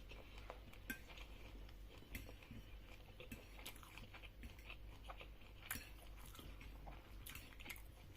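Faint eating sounds: chewing, with a handful of light, scattered clicks of cutlery against a plate.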